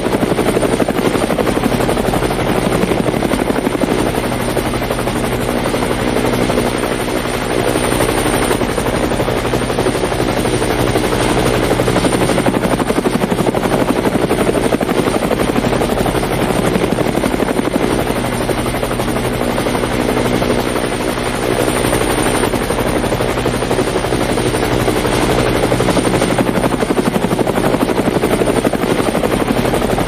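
Helicopter rotor chopping rapidly and steadily, with a constant thin high whine running over it.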